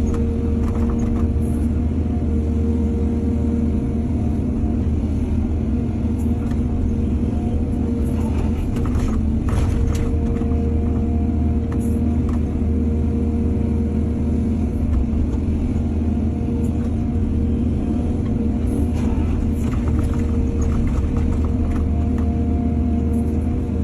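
Diesel excavator engine running steadily, with a few sharp knocks scattered through.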